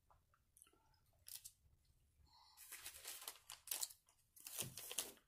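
Food packaging rustling and crinkling as it is handled, in short bursts that grow denser about halfway in.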